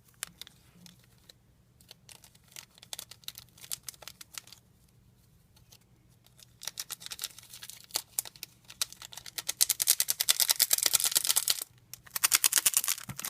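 Blue glitter being shaken out of its plastic container, a rapid rattling of clicks that starts faintly, grows dense and loud about ten seconds in, stops briefly, and starts again near the end.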